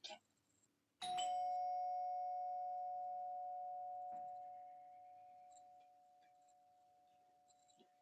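A doorbell chime strikes once about a second in, a single two-tone ding that rings on and slowly dies away over several seconds. A short click comes just before it.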